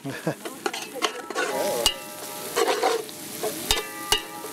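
Sliced onions sizzling as they brown in hot oil in a large metal cooking pot, stirred with a metal ladle that scrapes and knocks against the pot a few times, each sharp knock leaving the pot ringing briefly.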